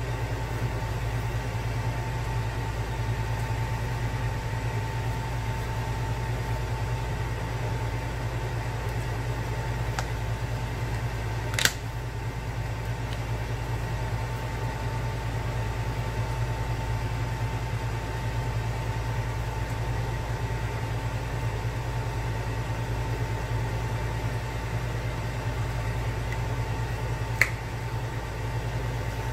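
Steady machine hum with a faint constant whine running under it, broken by two sharp clicks, one about twelve seconds in and one near the end.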